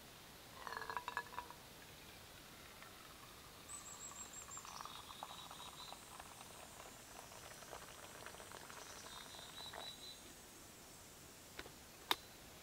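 Boiled water poured from a small titanium pot into a metal mug, a trickle lasting about six seconds, with a brief metallic clinking about a second in. A single sharp knock near the end.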